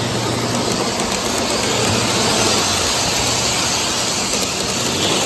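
Steady hissing din with a faint low hum, from O gauge model trains running on a layout.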